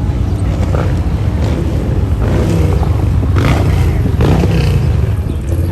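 Pitts S-1 aerobatic biplane's piston engine running during an aerobatic routine, a loud, steady low drone.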